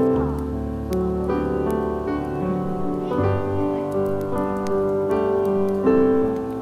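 Background piano music: a slow melody of held notes, a new note or chord coming in about every half second to a second.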